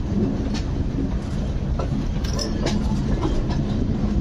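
Passenger express train running on the track, heard from its open coach doorway: a steady rumble of wheels and coach, with wheels clicking irregularly over the track.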